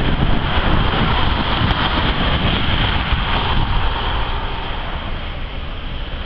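Steady noise of a Norfolk Southern freight train, a diesel locomotive hauling autorack cars, mixed with wind buffeting the microphone. It eases slightly over the last couple of seconds.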